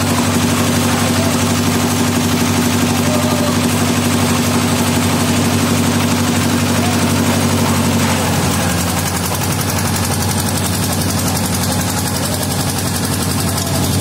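Concrete mixer's engine running steadily; its note shifts and drops slightly about eight seconds in.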